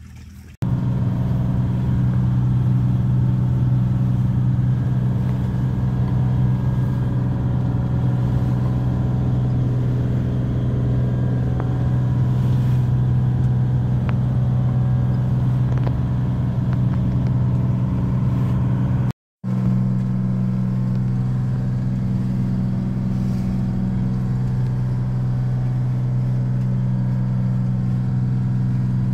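An engine running steadily at constant speed aboard a boat, giving a loud, even drone. It cuts out for a split second about two-thirds of the way through.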